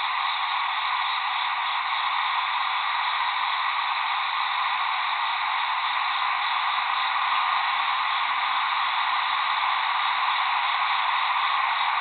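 Steady hiss of night-time background noise picked up by an Old Bird 21c nocturnal flight-call microphone, with no distinct bird call standing out.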